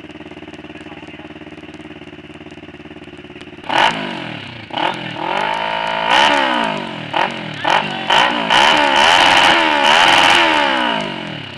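Motorcycle engine idling steadily, then revved hard about four seconds in: a string of throttle blips that rise and fall quickly, then held at high revs for about two seconds before dropping back toward idle near the end.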